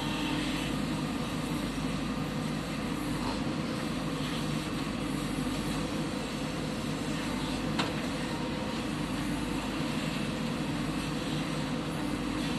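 Heavy diesel engine of earthmoving machinery running steadily, with one brief sharp click about eight seconds in.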